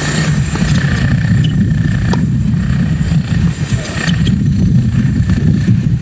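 Strong wind buffeting the microphone: a loud, steady low rumble. A few short knocks stand out over it, from tennis balls being struck in a rally.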